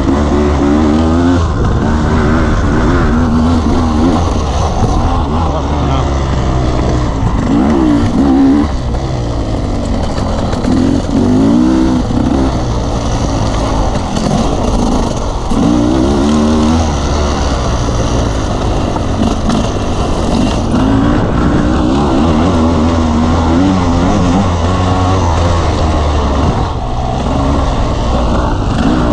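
Dirt bike engine revving up and down again and again as the throttle is opened and closed, with a steady low rumble underneath.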